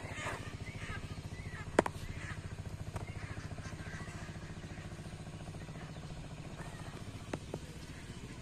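A small engine idling steadily with a fast, even low throb. There is a sharp click about two seconds in and two lighter clicks near the end.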